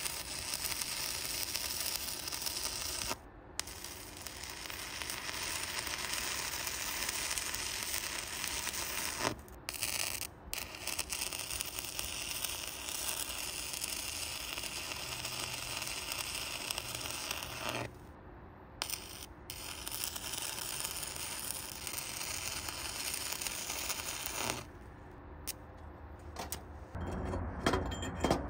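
Stick-welding arc crackling and sizzling steadily as the electrode burns, cutting out briefly several times. Near the end come a few sharp metallic taps of a slag hammer on the fresh weld.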